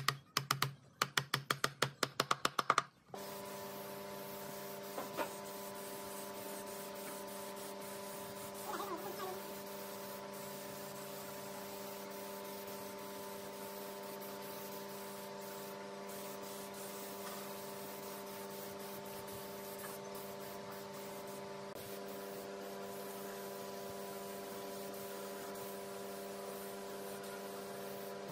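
A quick run of sharp taps for about the first three seconds, then a steady machine hum made of several fixed tones that holds unchanged to the end.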